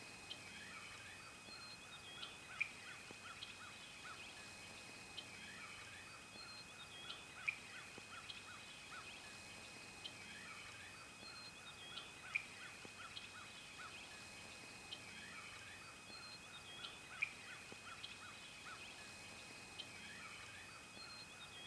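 Faint outdoor ambience: a short pattern of small calls and a tick repeating about every two and a half seconds over a steady high tone.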